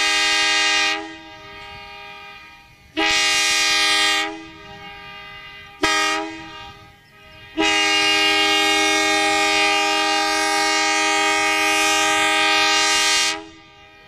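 Electric interurban car's horn sounding the grade-crossing signal: two long blasts, a short one, then a long one of about six seconds. It is a steady chord of several tones.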